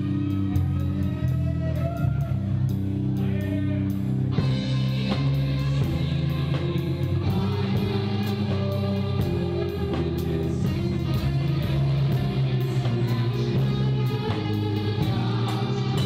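Rock band playing live: a drum kit keeps a steady beat under sustained bass notes and electric guitar, with a voice singing over them.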